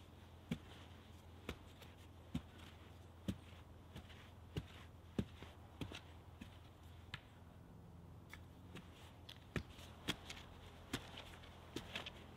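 Pointed wooden digging stick jabbed into soft forest soil about once a second, a series of short dull knocks and scrapes as a post hole is loosened out.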